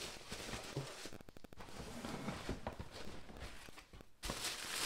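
Handling noise from a sneaker being packed into a cardboard shoebox: tissue paper rustling, with small knocks of shoe and box. A louder rustle starts near the end.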